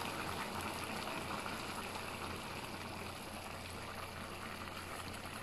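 Large aluminium pot of rice, peas and potatoes in water bubbling at the boil while a steel ladle stirs through it, a steady bubbling hiss that eases a little toward the end as the flame is turned down.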